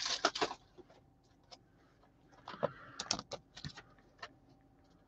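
Light clicks and rustling of trading cards and plastic card holders being handled, in a short cluster right at the start and another from about two and a half to four seconds, with a few single ticks later.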